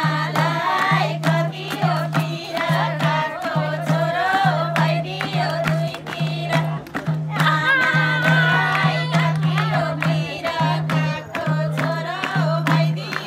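A group of women singing a Nepali folk song together, with hand clapping and a madal drum beating a steady, even rhythm.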